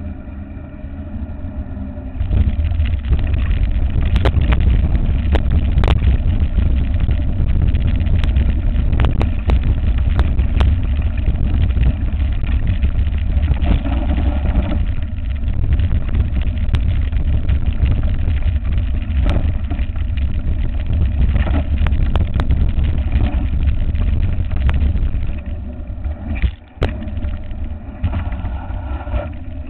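Wind buffeting and rumble on a handlebar-mounted camera of a mountain bike riding fast downhill, with scattered sharp knocks and rattles from bumps in the track. The rumble jumps up about two seconds in and eases off near the end as the bike comes onto smooth tarmac.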